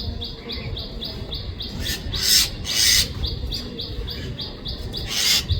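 Birds chirping: a steady run of short high chirps, about four a second, with a few louder, harsher calls about two and three seconds in and again near the end.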